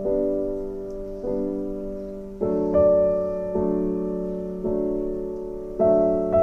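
Background music: slow piano chords, each struck and left to fade, a new one about every second.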